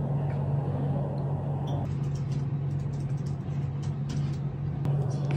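Steady low hum of a room air conditioner, with the hiss above it thinning about two seconds in and a few faint light taps.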